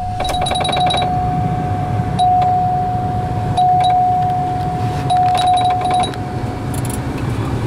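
Steady electronic warning tone from the 1976 Cadillac Seville's dashboard, held for about seven seconds and then stopping, over the low hum of the fuel-injected V8 running. The timed tone is typical of the seat-belt reminder that sounds when the ignition is switched on. Runs of rapid ticking come near the start and again about five seconds in.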